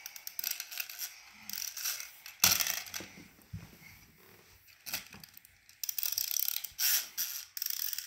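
Purple plastic wind-up bunny toy being wound, its clockwork giving rapid ratcheting clicks in several spurts, with one sharp knock about two and a half seconds in.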